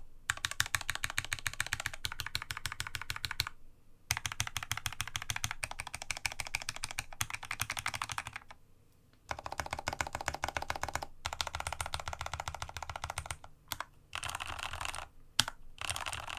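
Rapid key-mashing on a Dygma Raise split mechanical keyboard with lubed (Krytox) Cherry MX Red linear switches. Dense runs of keystrokes with short pauses about 3.5 s and 8.5 s in, then shorter stop-start bursts near the end.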